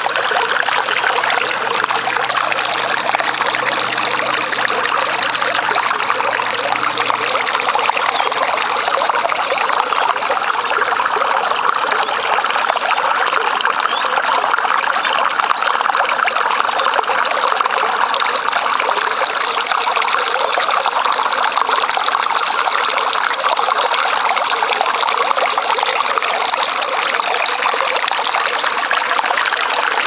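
Shallow stream water flowing and trickling over stones close to the microphone, a steady, unbroken splashing.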